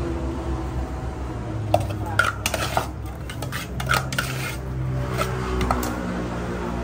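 Kitchen utensils clinking and clattering against dishes and cookware: an irregular run of sharp clinks and knocks that starts about two seconds in and dies away near the end, over a steady low hum.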